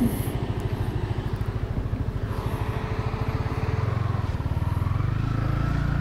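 Motorcycle engine running at low speed with a steady, even pulse.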